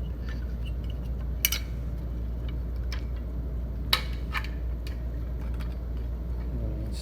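A caulking gun and caulk tube being handled, giving a few sharp metallic clicks and clinks, the loudest about one and a half and four seconds in, over a steady low hum.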